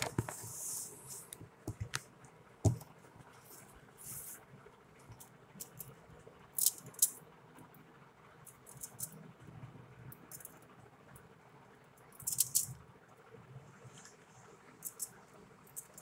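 Scattered handling sounds: short crinkles and rustles of aluminium foil, with a few light taps and clicks from a plastic glue bottle, the sharpest a knock about three seconds in.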